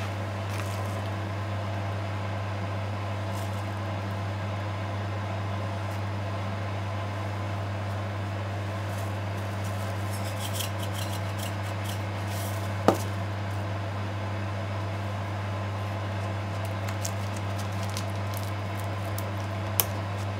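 Quiet handling sounds of a thin sushi roll being made on a bamboo rolling mat: faint rustles, a brief crinkle of plastic wrap about ten seconds in, and a sharp tap about 13 seconds in with a smaller one near the end. A steady low hum lies under it.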